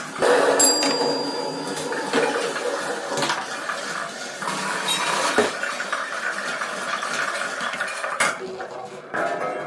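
Marbles rolling and clattering through a homemade marble-run sound circuit of tin cans, metal and recycled objects: a dense, irregular run of clinks, rattles and knocks. A brief high electronic tone sounds about half a second in.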